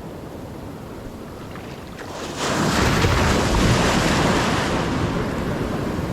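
Gulf of Mexico surf breaking on a sandy beach. About two seconds in, a big wave crashes into a loud rush that slowly dies away, with wind buffeting the microphone.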